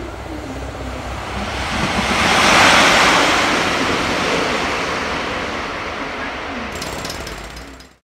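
An EF66 electric locomotive hauling an HD300 hybrid shunter passes close by at speed. Its rushing wheel and running noise swells to its loudest about three seconds in, then fades, and the sound cuts off suddenly near the end.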